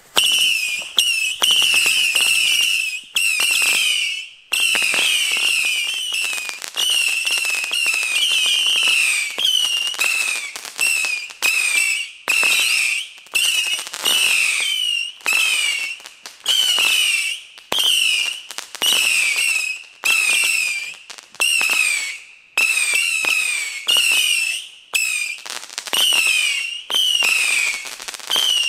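Several ground-level fireworks whistle batteries firing their shots in quick succession: a continuous string of overlapping shrill whistles, each a second or less long, its pitch wobbling and sliding down, with a sharp break between one whistle and the next.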